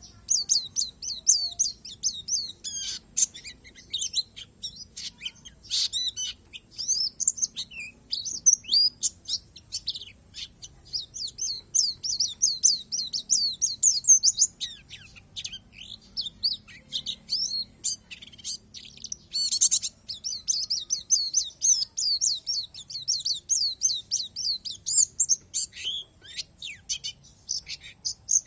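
Pleci palas Borneo white-eye singing: a rapid, continuous twittering of high chirps and short slurred notes, with a few brief lulls.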